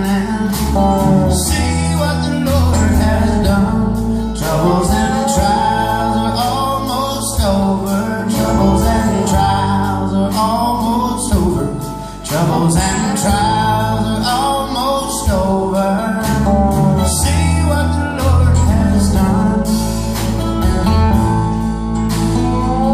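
Live band playing a gospel song: singing over strummed acoustic guitars, mandolin, bass and drums.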